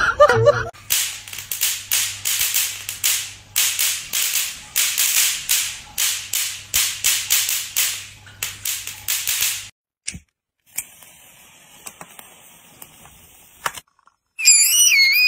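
Electric mosquito-swatter racket zapping: a long run of sharp crackling snaps, several a second, over a low electrical hum, lasting about nine seconds. After a few seconds of faint hiss, a musical lotus birthday candle starts playing a warbling melody near the end.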